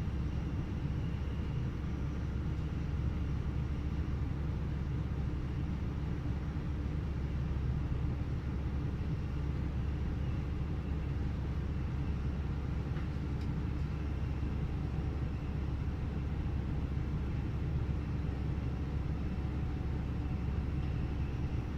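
Passenger train running, heard from inside the carriage: a steady low rumble of running gear and traction with faint steady whining tones above it.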